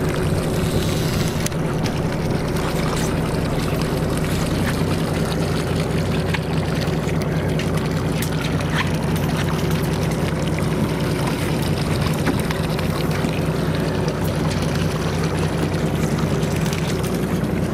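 Charter boat's engine running with a steady low hum.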